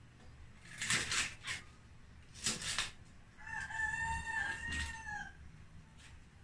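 A knife cuts through crisp vegetable on a cutting board in two short crunching strokes, then a rooster crows once, a pitched call of about two seconds that drops slightly at the end.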